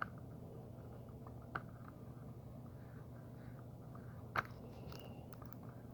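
Soldering gun giving a faint steady electrical hum as its hot tip melts down the sharp cut end of a zip tie, with a few light clicks, the sharpest about four and a half seconds in.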